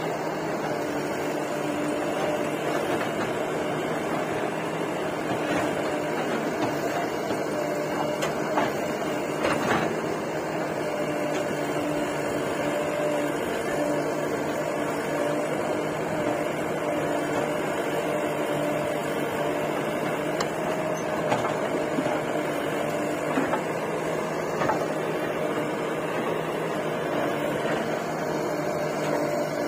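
Diesel engines of a Sonalika tractor and a JCB 3DX backhoe loader idling steadily, with a few short knocks.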